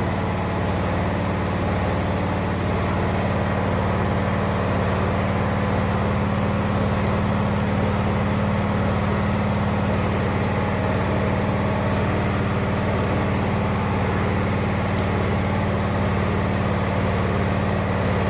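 Steady machine hum with a faint hiss above it, unchanging throughout, with a few faint ticks.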